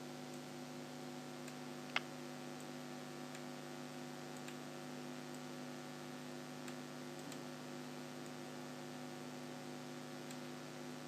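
Steady electrical mains hum over faint hiss, with a few faint mouse clicks and one sharper click about two seconds in.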